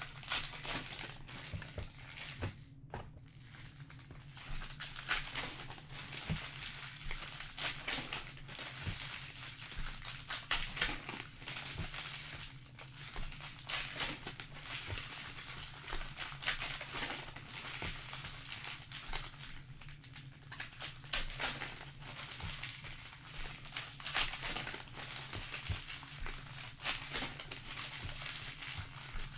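Foil trading-card pack wrappers crinkling and tearing as a hobby box's packs are opened and handled, in an irregular run of crackles.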